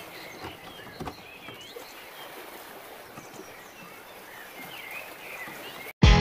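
Outdoor ambience: a steady hiss with a few short, gliding bird chirps. It cuts off abruptly near the end, and loud guitar music starts.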